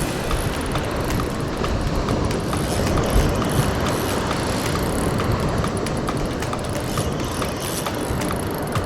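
Spinning reel ticking in an even run of small clicks as a hooked bigfin reef squid is brought in, over steady wind and surf noise.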